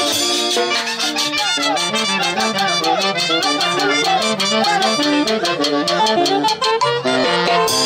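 Andean folk orchestra music: a quick melody in several voices over a steady beat.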